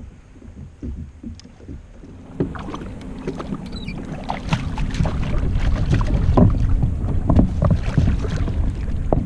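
Water sloshing against a plastic sit-on-top kayak hull, with scattered knocks and scrapes on the hull. It grows louder and busier about two and a half seconds in.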